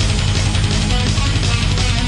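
Loud, fast heavy-metal music with distorted electric guitar and a driving beat.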